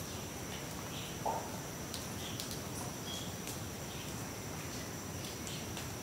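A turquoise-browed motmot gives one short, low call about a second in. Under it runs a steady high insect buzz, with scattered faint clicks and small chirps.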